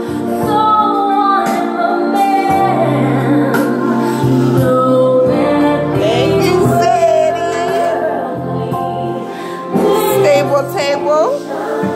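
Gospel worship music with singing voices over a steady bass line.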